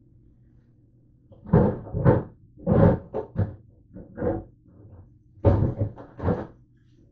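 A run of irregular knocks and thumps from a low cupboard being opened and things inside being moved about.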